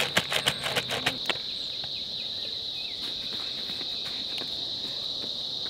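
Insects chirring steadily at one high pitch, with a quick run of about ten sharp clicks and crackles in the first second and a half.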